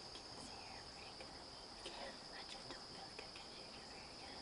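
Steady, high-pitched insect chorus of crickets trilling without a break, with a few faint clicks over it.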